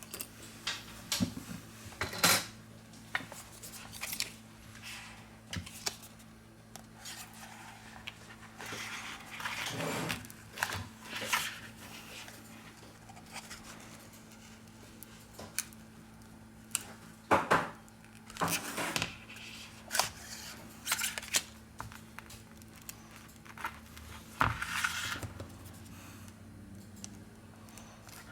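Hand opening tools clicking, tapping and scraping against an iPad Pro 10.5's glass screen and frame as the screen adhesive is pried loose: irregular short clicks and brief scrapes, over a faint steady hum.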